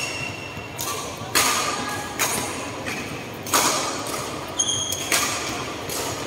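Badminton rally: a string of sharp racket hits on the shuttlecock, each echoing in a large hall. A shoe squeaks briefly on the court floor a little before the last hits.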